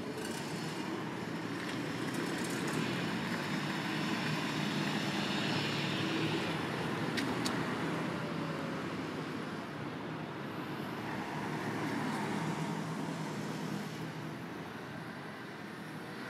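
A car driving past and away down a street, its engine and tyre noise swelling to a peak about six or seven seconds in and then fading, followed by a second, smaller swell of traffic noise.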